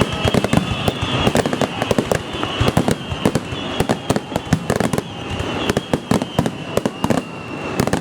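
Aerial fireworks bursting in rapid succession: a dense run of sharp bangs and crackles, with faint high whistles gliding slowly down behind them.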